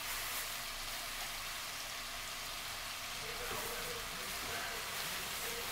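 Spice-coated chicken breasts frying in melted butter in a skillet, sizzling with a steady hiss.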